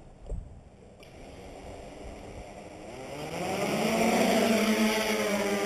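Hexacopter's six NTM Prop Drive 35-36 910 kV brushless motors with 10x4.5 props spinning up. The whine rises in pitch and loudness about halfway through, then holds steady and loud.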